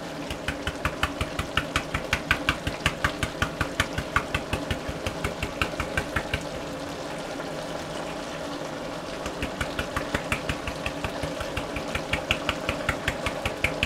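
Chili powder shaken from a spice container over a pot of chili: quick, even shakes, about three or four a second, that ease off briefly around seven seconds in and then pick up again.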